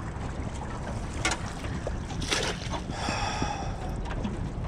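Crab drop-net rope being hauled in by hand over the side of a small aluminium boat, with water splashing and trickling off the rope, over a low wind rumble on the microphone. A brief squeaky tone comes about three seconds in.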